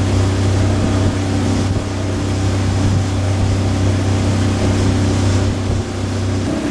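Pontoon boat's outboard motor running steadily underway, a constant low drone with the rush of water and wind noise over it.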